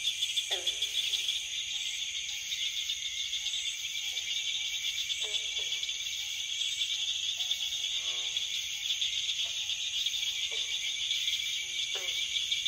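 A steady insect chorus, with short calls sliding down in pitch at irregular intervals about every second or two.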